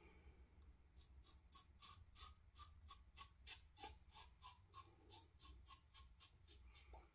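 Faint, quick scraping strokes of a bronze double-edge safety razor cutting stubble through shaving lather, about three short strokes a second.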